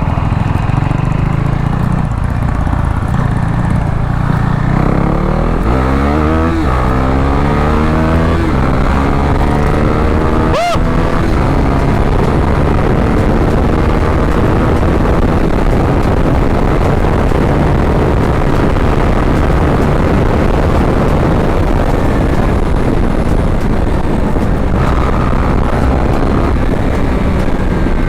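KTM RC 390's single-cylinder engine idling, then accelerating hard from about five seconds in, its pitch rising and dropping back with each gear change. After that it runs at speed, with rushing wind and road noise covering the engine.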